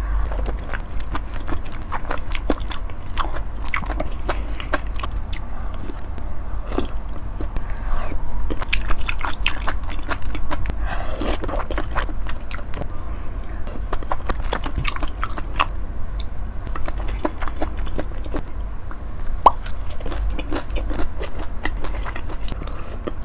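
Close-miked chewing of beef large intestine (daechang) from a mala hot pot: a steady run of wet mouth clicks and smacks over a low rumble.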